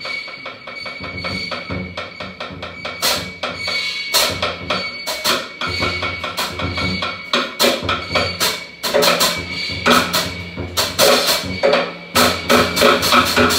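Drum kit played in a free solo improvisation: a dense, irregular run of quick stick strikes on drums and cymbals over a steady ringing tone, growing louder and busier about three seconds in.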